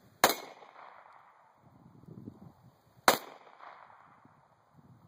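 Two unsuppressed 9mm pistol shots from a Glock 17 with a Lone Wolf LWD-17TH threaded barrel (thread protector on), about three seconds apart, each a sharp report with a short echo.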